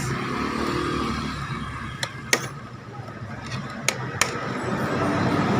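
Three sharp metal clicks and taps, spread over a few seconds, as a scooter's replacement starter motor is worked into place by hand and tool.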